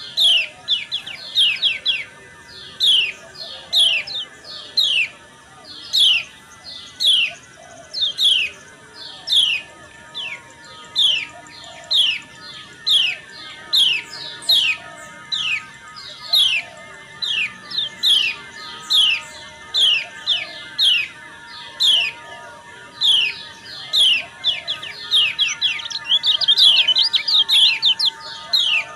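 Female kecial kuning white-eye calling: a long series of short, sharp, downward-sweeping notes, about one or two a second, with a quicker flurry about four seconds from the end. This is the female's 'ciak' call, used as a lure to stir males to sing.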